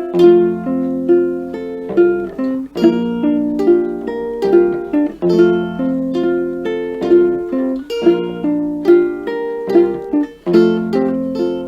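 A plucked string instrument playing an instrumental passage of a carol tune, with a steady rhythm of picked notes and ringing chords.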